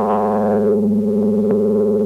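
Synthesizer score: a steady, sustained drone on a low chord, with a brighter swell of upper tones at the start that fades within the first second. A small click sounds about one and a half seconds in.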